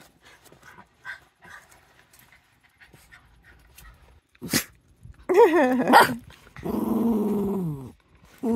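Small dog vocalizing: a short wavering cry about five seconds in, then a long drawn-out call that drops in pitch at its end, with another starting right after it.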